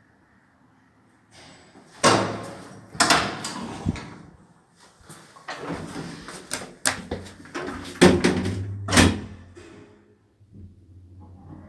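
Metal landing door and car doors of an old Zremb passenger lift being worked: a run of clanks and slams, loudest about two, three, eight and nine seconds in, with smaller knocks between.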